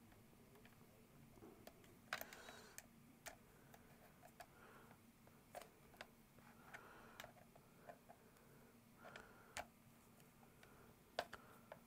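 Faint scattered clicks and short rustles: stiff wires and a screwdriver being worked into a contactor's screw terminals. The sharpest clicks come about two seconds in and near the end.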